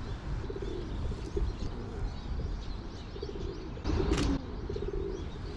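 Pigeons cooing in repeated low calls, with one short loud rush of noise about four seconds in.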